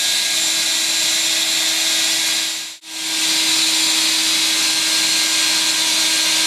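Electric drill running steadily at full speed, spinning two hookup wires into a twisted pair: an even motor whine with one constant tone. It dips out briefly about three seconds in, then resumes at the same pitch.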